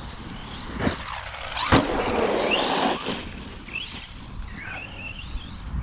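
ARRMA Kraton 4S V2 radio-controlled truck's electric motor whining up and down in pitch under repeated throttle. A sharp knock comes about 1.7 seconds in, followed by about a second of rushing noise.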